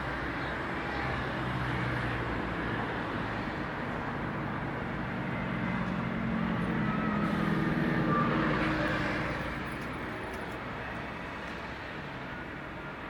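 Street traffic: a steady road hum, with a motor vehicle passing that grows louder to a peak about eight seconds in, then fades.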